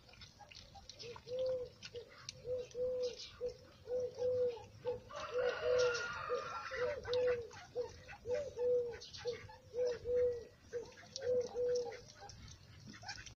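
A long series of short, soft cooing calls at one pitch, about two a second and often in pairs. Under them are light clicks and clinks from puppies eating out of a metal bowl, and a brief harsher call about halfway.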